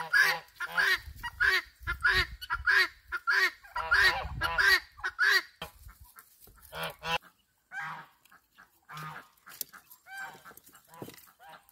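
Geese honking over and over in a fast, overlapping run of calls, thinning to fewer, scattered honks after about five and a half seconds.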